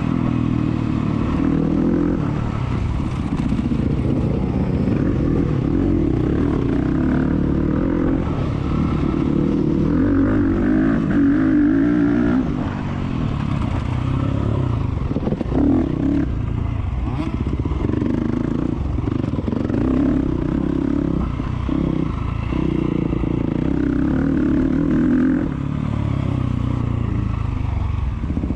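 Enduro motorcycle engine racing off-road, the throttle opening and closing again and again so the revs keep rising and falling. A few clattering knocks come about halfway through.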